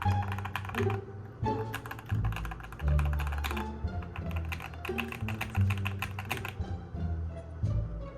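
Mechanical keyboard typed on in fast runs of clicking keystrokes, with a short pause about a second in. Its stabilizers are stock and unlubricated. Background music with bass notes plays throughout.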